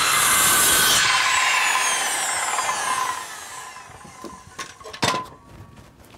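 Circular saw cutting slots across PVC pipe laterals. About a second in, the trigger is let go and the blade winds down in a falling whine over the next couple of seconds. A few light knocks follow in the quiet.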